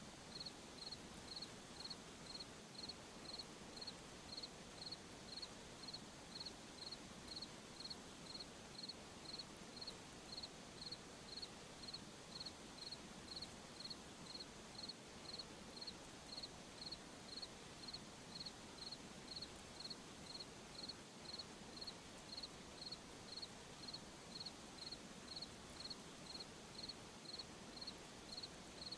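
Faint cricket chirping in a steady, even rhythm, about three short high chirps every two seconds, over a faint background hiss.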